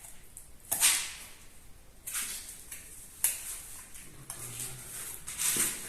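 Several short scraping and clattering noises of a welded steel frame being handled and shifted into place on a brick podium, the loudest about a second in.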